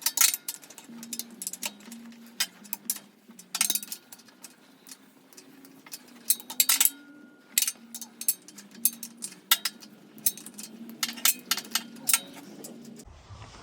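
Metal hand tools and sockets clinking and clattering, a long run of sharp irregular clicks, as they are rummaged through to find a large enough socket.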